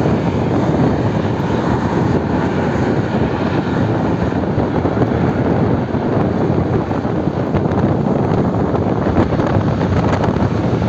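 Wind rushing over the microphone and road noise while riding an electric motor scooter at about 45 to 55 km/h: a steady, even rush with no engine note.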